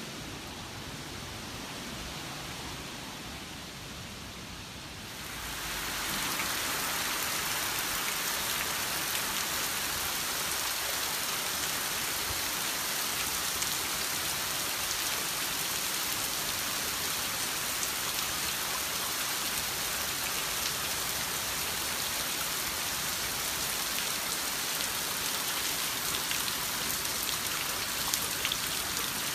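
Heavy typhoon rain falling as a steady hiss. About five seconds in, it changes to a louder, denser downpour.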